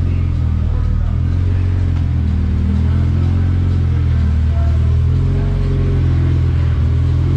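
Honda Civic engine idling steadily through a freshly installed K-Tuned big tube exhaust header, with a deep, even exhaust note.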